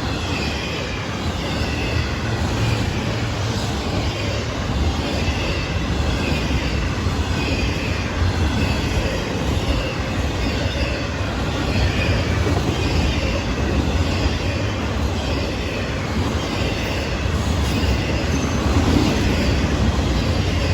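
Freight train rolling past: a steady rumble of wheels on rail with a faint squeal from the wheels coming and going about once a second.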